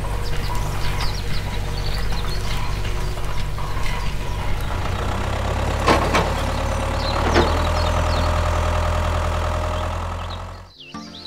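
Tractor engine running steadily with a low drone, with light rattling and two sharp knocks about 6 and 7.5 seconds in; it cuts off near the end.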